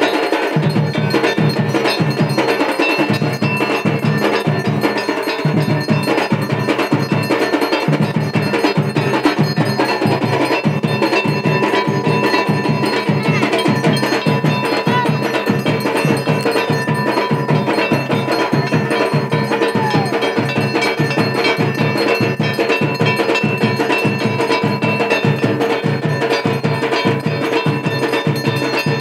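Fast, even drumming that keeps up without a break, with bells ringing steadily over the beat.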